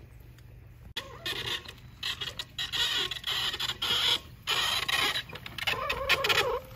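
A loaded wheelbarrow being pushed, its wheel and frame creaking in irregular bursts that start about a second in.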